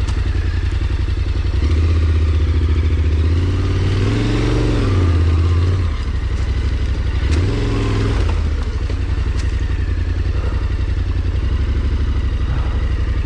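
A small vehicle engine runs under load with a steady low beat. Its pitch rises and falls twice, about four seconds in and again near eight seconds, as the throttle is worked climbing rough ground, with a light rattle over it.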